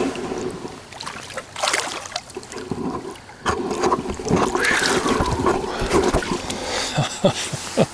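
Water splashing and sloshing against the side of a kayak, mixed with irregular knocks and rustles of handling.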